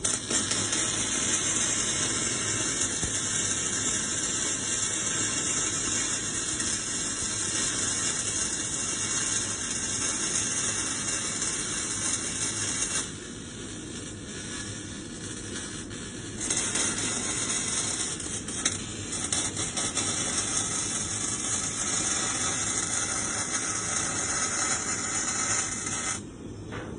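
Electric welding arc crackling and hissing steadily as a bead is run downhill along one side of the joint. It breaks off about 13 seconds in, strikes again about three seconds later, and stops shortly before the end.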